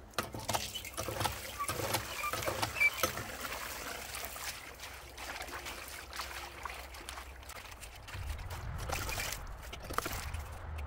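Water trickling and splashing from a hand pump into a stainless steel bowl, with scattered clicks and knocks as hands scrub the bowl out.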